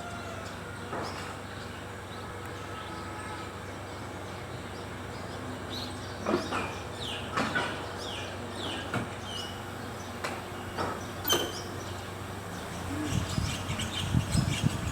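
Toyota Wish's front left brake making its abnormal noise: a few short falling squeaks and sharp clicks over a steady low hum, mostly in the middle of the stretch.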